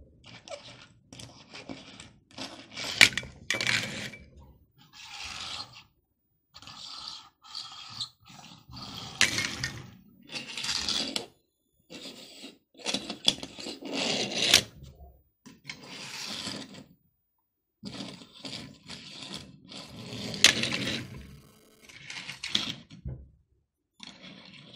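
Small toy cars pushed back and forth on a table top: their wheels and bodies roll and scrape in short bursts with brief pauses, and there are a few sharp clicks as a car is knocked or set down.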